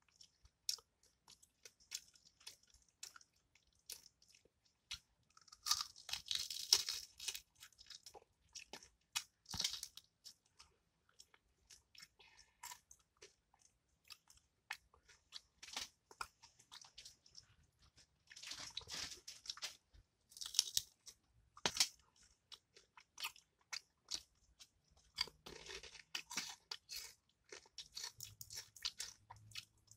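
Close-miked chewing and crunching of crispy fried bone-in fish: irregular bursts of crackling crunches with sharp clicks between them, the loudest bunches about a quarter of the way in and again past the middle.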